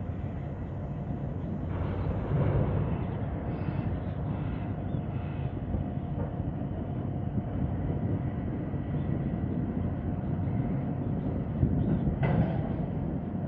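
Steady low rumble of distant port machinery and harbour background noise, with a faint steady whine above it. It swells slightly a couple of seconds in and again near the end.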